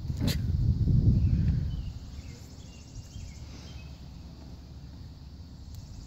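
A hand-thrown snap pop cracks once on the concrete about a third of a second in, a single sharp snap. A low rumble runs under it for the first couple of seconds.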